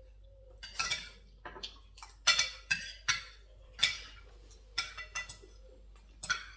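Spoons and forks clinking and scraping against plates during a meal, about ten short, irregular strokes, two of them louder.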